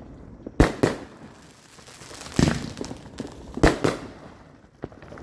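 Fireworks going off: about six sharp bangs, mostly in close pairs, each trailing off briefly.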